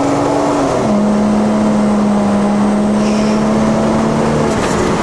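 Toyota Supra engine in a VAZ-2104 (Lada) hatchback running under way, heard from inside the cabin. Its note climbs slightly, drops in pitch about a second in, then holds a steady drone.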